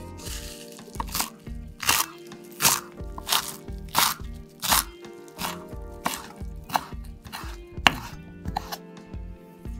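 Chef's knife chopping fresh parsley on a wooden cutting board, a sharp knock about every two-thirds of a second, over background music.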